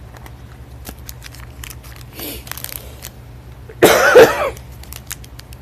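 A woman's loud cough about four seconds in, one short burst.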